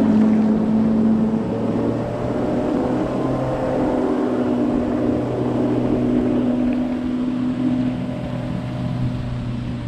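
Bay boat's outboard motor running steadily at speed, a droning hum whose pitch shifts slightly a couple of seconds in, over the rush of water and wake.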